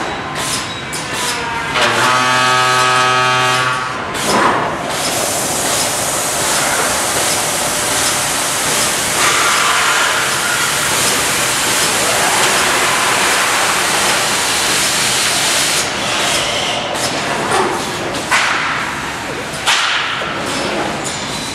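A PVC window-profile processing machine at work. It gives a pitched motor whine for a couple of seconds, then a long steady hiss-like cutting or air noise. Irregular mechanical clunks and knocks come near the end.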